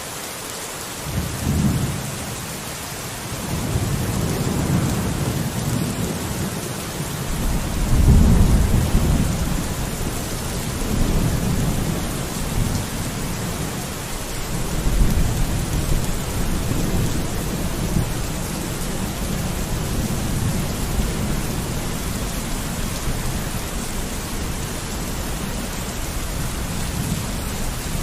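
Steady rain with rolling thunder: a series of deep rumbles swelling and fading, the loudest about eight seconds in, then a lower continuous roll under the rain.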